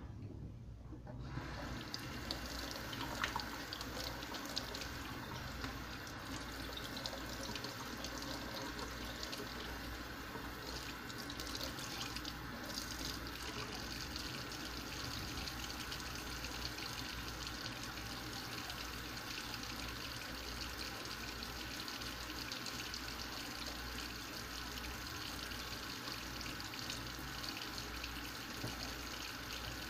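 Kitchen faucet running into a stainless steel sink, a steady stream of water splashing as dishes are washed under it; the water comes on about a second in. A few light knocks of dishes in the sink in the first few seconds.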